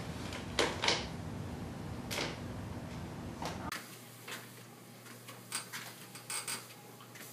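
Plastic cat flap clacking several times as it swings shut behind a cat. After a cut, a treadmill runs with a faint steady hum and a few light taps as a cat walks on the belt.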